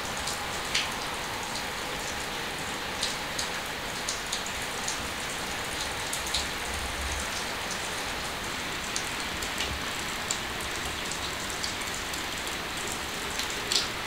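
Steady rain, an even hiss with scattered louder drops, the sharpest one near the end.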